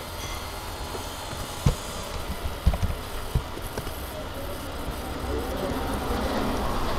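A steady low background rumble with a handful of dull low thumps and knocks about two to three and a half seconds in. The knocks are handling noise against the recording setup.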